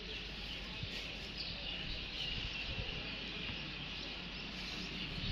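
Outdoor ambience: small birds chirping faintly over a steady background hush.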